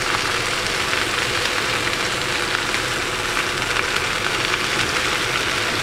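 Ribeye steaks sizzling in butter in frying pans: a steady hiss dotted with small crackles, over a steady low hum.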